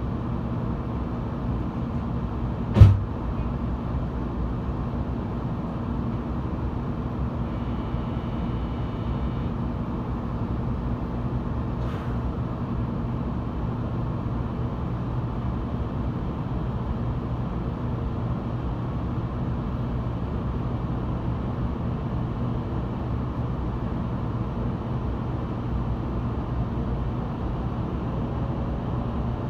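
Steady hum inside an 800-series Shinkansen car standing at a platform, broken once by a single sharp knock about three seconds in. Near the end a whine rises in pitch as the train's traction motors start it moving away from the station.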